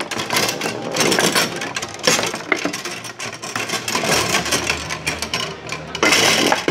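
Foosball table in play: a rapid, uneven run of clacks and knocks as the hard ball hits the players' figures and the table's sides and the metal rods slide and bang, with louder flurries about a second in, two seconds in and near the end.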